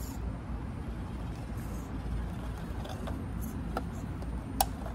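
Axial SCX24 RC crawler with a PN Racing 90-turn 130 brushed motor creeping slowly over rocks: a steady low rumble, a few faint ticks of tyres and chassis on stone, and one sharp click near the end as the truck knocks against the rock.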